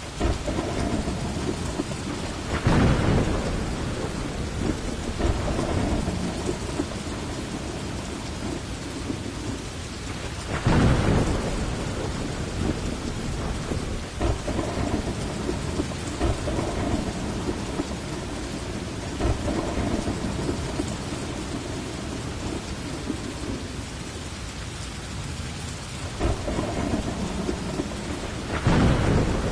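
Steady heavy rain falling, with rolls of thunder that rumble up louder three times: a few seconds in, about a third of the way through, and near the end.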